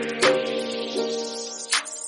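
Background music: soft instrumental notes over a light, steady beat.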